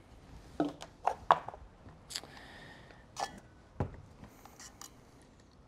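A marinade bottle and an insulated metal tumbler being handled while liquid marinade is poured into the cup: about half a dozen light clicks and knocks, with a short faint hiss in between.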